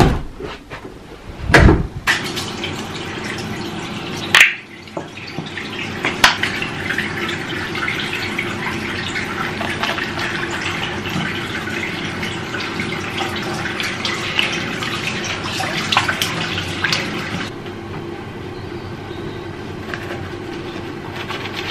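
Bathroom tap running into a sink, with a few knocks early on; the water stream drops lower near the end.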